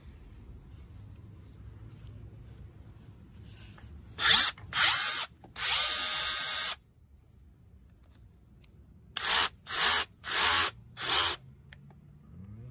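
Ryobi ONE+ HP 18V SDS rotary hammer drill running free with no bit fitted, triggered in seven short bursts: three about four seconds in, the last held for about a second, then four quick ones near the end.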